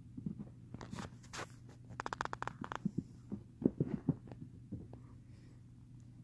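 Phone handling noise: scattered clicks and rustles, a rapid run of clicks about two seconds in and a few soft thumps a little later, over a steady low hum.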